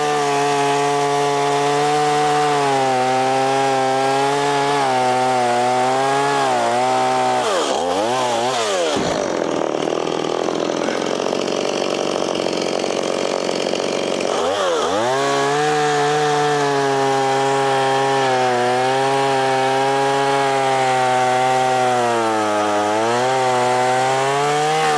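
Stihl chainsaw running at high revs, cutting through tree limbs. The revs drop away and climb back about a third of the way in, then hold steady and dip briefly once more near the end.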